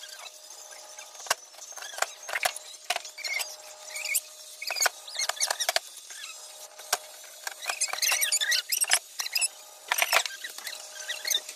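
Hand rivet gun working on an aluminum window frame, giving a series of sharp clicks as the rivets are pulled and snap. Short, high, wavering squeaks and chirps come and go between the clicks.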